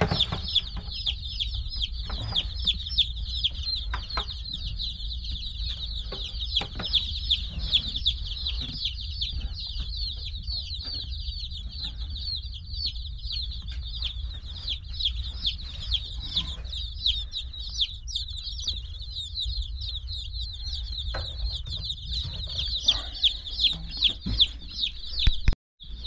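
A flock of baby chicks peeping nonstop, a dense chorus of short, high, falling chirps, over a steady low hum. The sound breaks off for a moment near the end.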